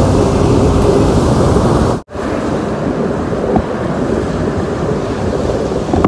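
Surf breaking on a sandy beach, mixed with wind buffeting the microphone. The sound cuts out for an instant about two seconds in.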